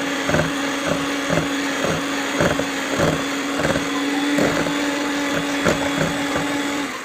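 Electric hand mixer running in cake batter as the baking powder and soda are beaten in. The motor holds a steady hum while the beaters knock against the bowl about twice a second, and it switches off near the end.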